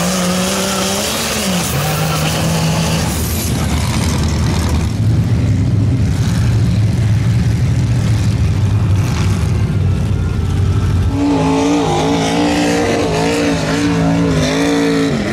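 Lifted mud-bog truck engines, including a diesel mega truck, running hard at high revs as they plow through deep mud. The engine note dips and climbs again about a second and a half in, holds steadier through the middle, and swings up and down repeatedly over the last few seconds as the throttle is worked.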